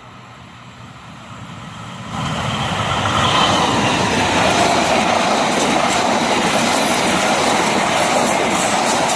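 A train approaching and passing close by. The noise builds over the first two seconds, jumps up sharply, then holds as a loud, steady rumble and rattle of the cars rolling past on the rails.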